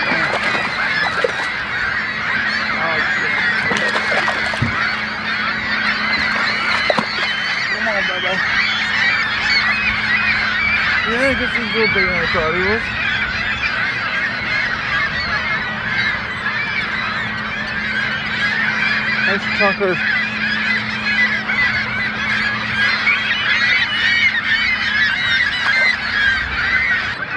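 A large flock of birds calling all at once in a dense, steady chorus of overlapping honking calls, with a faint steady low hum underneath.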